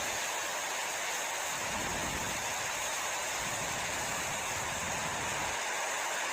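Strong, gusty wind blowing: a steady rushing hiss with low rumbling buffets on the microphone that swell and fade every second or two.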